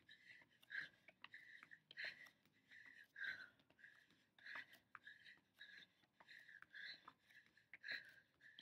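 Faint, quick, hard breathing of a person exercising, about two breaths a second, with light taps of hands and feet on an exercise mat.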